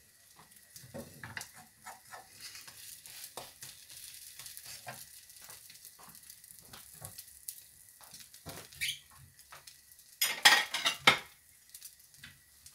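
Mushroom omelette sizzling and crackling in a skillet over a gas flame. A little over ten seconds in, a short, loud clatter of dishes.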